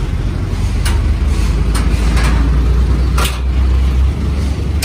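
Kubota M6950DT tractor's diesel engine working under load as the tractor climbs loading ramps, with a few sharp knocks along the way. The engine eases off about four seconds in.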